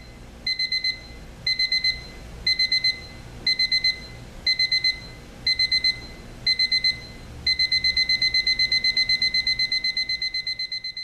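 Westclox 47311 quartz alarm clock's electronic alarm beeping at a single high pitch. Short bursts of quick beeps come about once a second, and about seven and a half seconds in they give way to continuous rapid beeping, the stepped-up stage of its ascending alarm.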